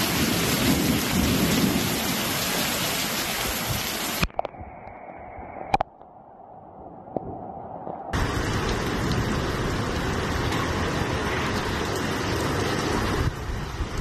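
Heavy rain pouring on a flooded street, a dense steady hiss. About four seconds in it drops away to a quieter stretch with a couple of sharp clicks, then comes back as strong about eight seconds in.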